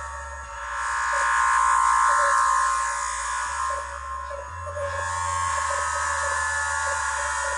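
Eurorack modular synthesizer patch playing a low bass line that steps to a new note every second or few. Above it runs a buzzy, resonant mid-range tone that swells up and then eases back over the first few seconds.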